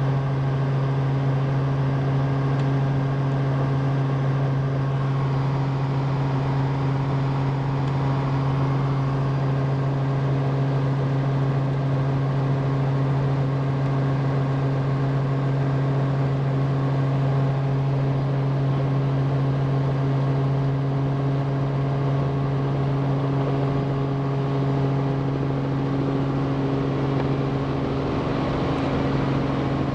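Robinson R44 II helicopter's six-cylinder Lycoming engine and rotors running, heard inside the cabin as a steady drone with a strong low hum.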